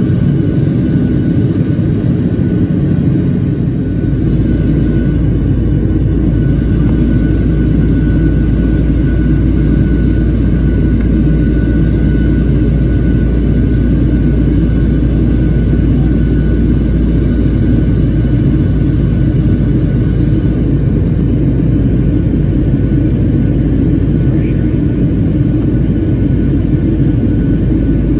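Jet airliner cabin noise in flight: a steady low drone of the engines and rushing airflow, with a faint steady high whine above it.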